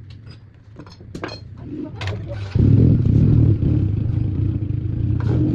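A few knocks and clicks, then about two and a half seconds in a motor starts abruptly and runs with a steady low hum.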